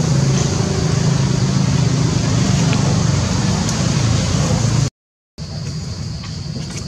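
Steady low motor-like rumble with a hiss over it. It cuts out completely for about half a second around five seconds in, then carries on a little quieter.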